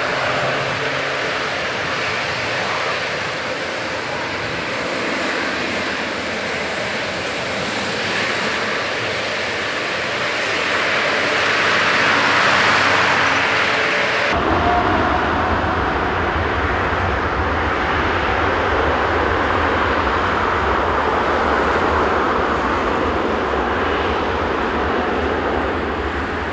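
Boeing 787-9 jet engines, Rolls-Royce Trent 1000 turbofans, running with a steady whine as the airliner taxis past, swelling louder shortly before halfway. After an abrupt cut about halfway through, a deeper low rumble takes over as the engines run at take-off power.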